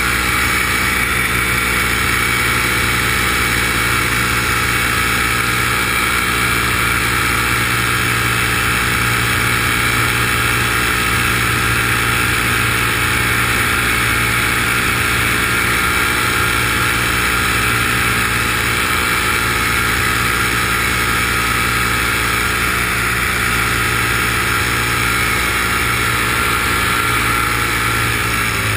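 Motors and propellers of a model aircraft carrying the camera, heard on board: a steady, loud hum of many layered tones, with the pitch starting to dip right at the end.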